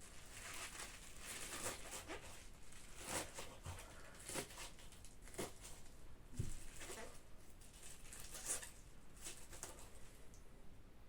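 Kitchen knife cutting through fresh spinach leaves on a cutting board in a rough chop: irregular crisp cuts, about one or two a second.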